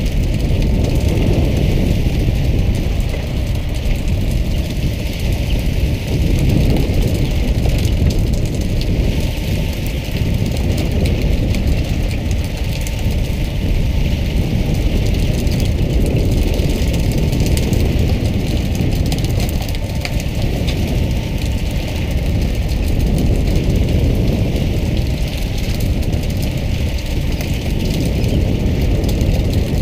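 Fishing boat's engine running steadily, with water spraying and splashing along the hull.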